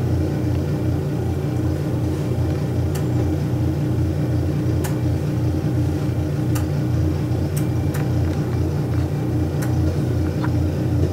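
Remote-controlled Ariens Deluxe snow blower's engine running steadily as a low rumble, with a few faint clicks.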